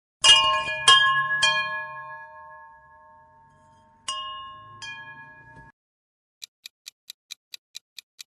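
Wind chimes struck three times in quick succession, then twice more about four seconds in, each strike setting off several clear ringing tones that slowly fade. After a pause, a quick, faint ticking of about four to five ticks a second follows.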